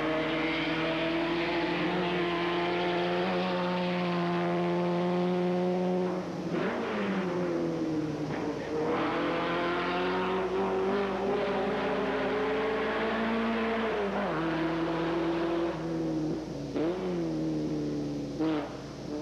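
Racing car engine at high revs as the car climbs the course. The pitch rises steadily, then dips sharply and climbs again three times as the driver shifts or lifts.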